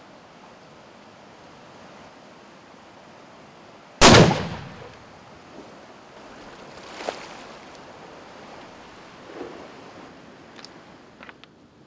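A single rifle shot about four seconds in, loud and fading over about half a second, over a steady rush of river water. A few fainter knocks and short clicks follow.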